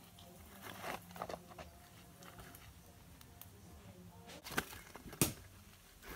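Handling of a breadfruit roasting on charcoal: leaves rustle and coals shift with small clicks. Two sharp knocks come about four and a half and five seconds in, the second the louder.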